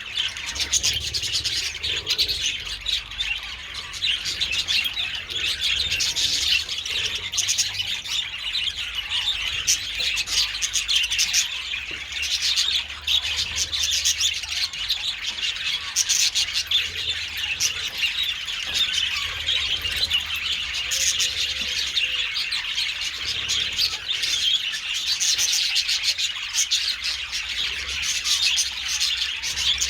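A colony of budgies chattering, with many birds warbling, chirping and squawking at once in a steady, dense flock chorus. A faint low rumble runs underneath.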